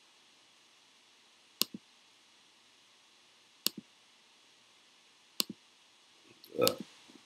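Three sharp double clicks about two seconds apart, each a quick press and release, from computer input at a desk, then a louder short dull thump near the end.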